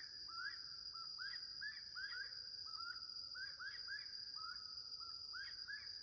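Birdsong: short rising whistled notes repeated in quick runs of three to five, with brief gaps between runs, over a steady high-pitched insect hum.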